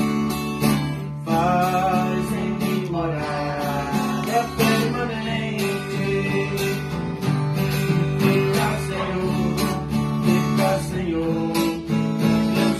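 Viola caipira and acoustic guitar playing together: strummed chords and picked melody notes over a steady bass line.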